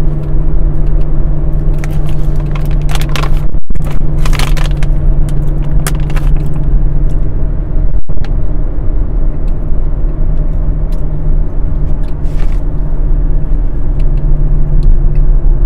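A steady low rumble and hum of a running vehicle, with scattered light clicks and rattles. The sound drops out for an instant twice, about four and eight seconds in.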